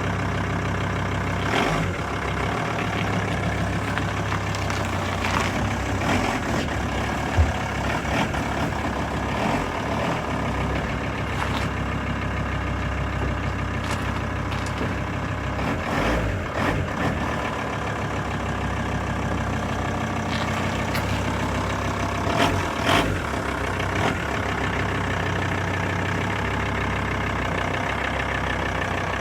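Vehicle engine idling steadily, with a few short knocks and clunks over it.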